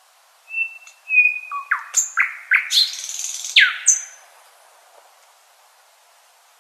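Nightingale singing one song phrase: two held whistled notes, then a quick run of downward-sweeping notes and a harsh buzzy stretch, ending about four seconds in.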